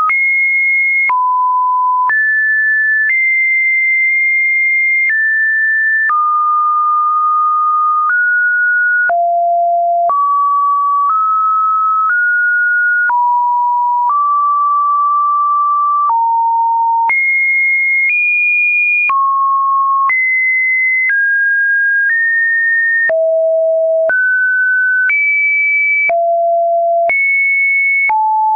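Webdriver Torso test tones: one pure sine beep after another, each held about a second and then jumping to a new, random pitch, mid to high, with a small click at each change.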